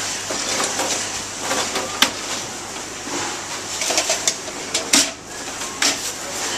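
Commercial kitchen background: a steady hiss with scattered knocks and clatter of equipment being handled, the sharpest knock about two seconds in and another about five seconds in.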